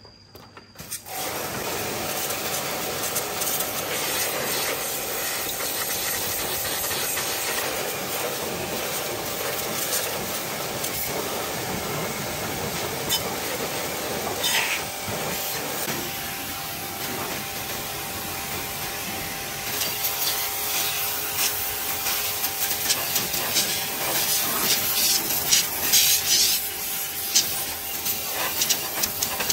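Pressure washer running: a steady hiss of the water jet over a faint hum from the pump, starting about a second in, as the spray blasts grime off a tractor's engine and wheel. The spray spatters more unevenly in the last ten seconds.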